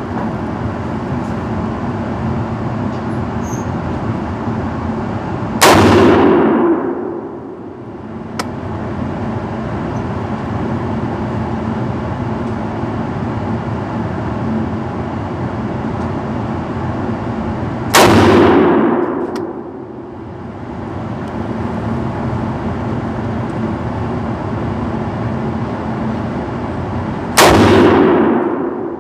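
Three rifle shots from a Loki Weapon Systems AR-15 fitted with an SJC Titan compensator, about twelve and then nine seconds apart. Each is a sharp crack that rings off the walls of an indoor range for about a second, over a steady background hum.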